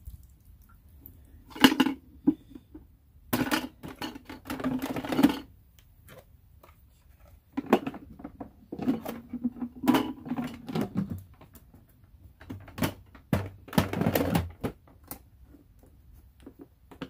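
Hard plastic clicking, clunking and rattling as the Bissel SpotClean Pro carpet extractor's dirty-water tank is handled and seated back onto the machine, with a few longer scraping stretches between the clicks.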